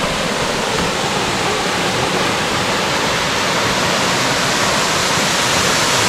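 Blue Basin Waterfall's water pouring down into its pool: a steady, even rush of falling water.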